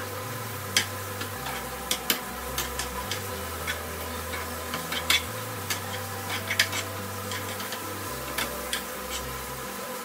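Butter sizzling in frying pans on a gas stove, with steak in a cast-iron skillet and vegetables being stirred in a small pan; scattered sharp clicks and pops come irregularly throughout.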